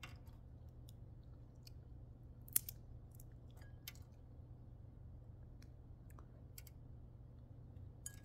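Brittle sweet tamarind pod shells cracking and snapping as they are peeled by hand: a scatter of small sharp clicks, the loudest about two and a half seconds in, over a faint steady low hum.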